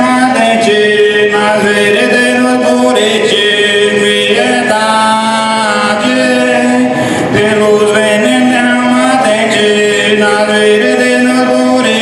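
Slow, chant-like singing with long held notes that change pitch every second or two.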